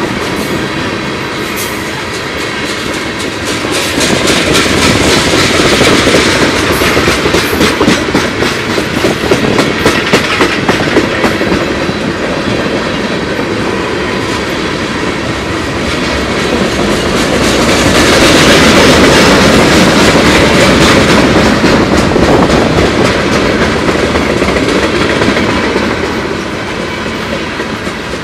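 Freight cars of a mixed freight train rolling past close by, steel wheels clicking over the rail joints over a steady rumble. It swells louder about four seconds in and again past the middle.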